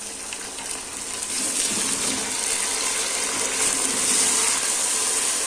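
Raw mutton pieces sizzling in hot ghee with fried onions in a pressure cooker as they are stirred: the meat has just gone in and is searing. A steady hiss that grows louder about a second and a half in.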